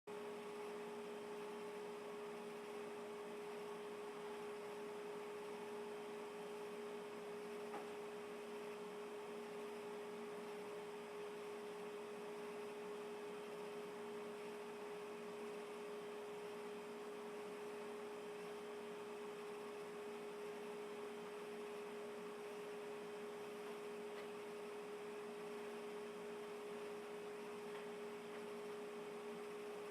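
A steady hum at one fixed pitch, with a fainter lower tone beneath it, over a faint even hiss.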